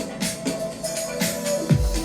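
Electronic dance music played through an HK Audio LUCAS PA speaker system. The bass drum is faint for most of the stretch and comes back in hard near the end.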